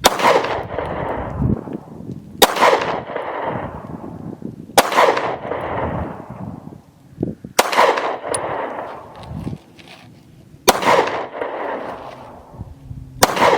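Six single gunshots fired one at a time, about two and a half to three seconds apart, each a sharp crack followed by a short fading echo.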